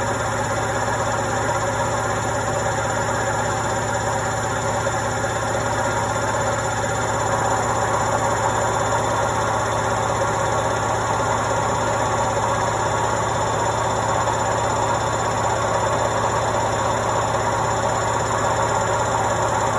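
Indesit washing machine running on a quick wash: a steady hum and whir of the motor and turning drum, a little louder from about seven seconds in.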